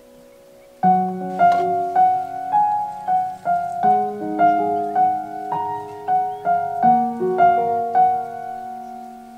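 Background music: a slow piano melody of single struck notes, about two a second, coming in about a second in.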